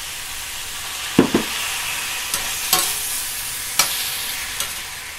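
Stir-fry vegetables and chicken sizzling in a hot stainless steel pan, a splash of water just added. A metal spatula knocks and scrapes against the pan about six times as the food is stirred.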